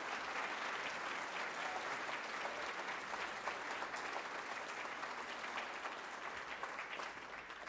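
Audience applauding to welcome a speaker: a dense, steady patter of many hands clapping that begins to fade near the end.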